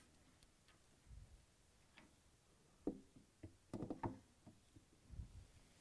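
Faint, scattered clicks and knocks of a washer tub suspension spring being handled and hooked onto the tub, with a small cluster of taps about four seconds in.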